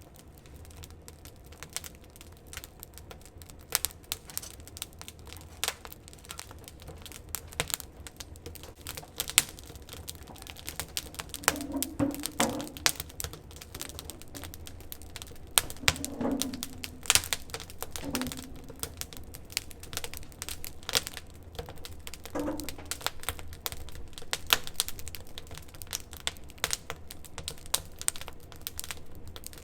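Wood fire crackling, with frequent irregular sharp pops and snaps from the burning wood.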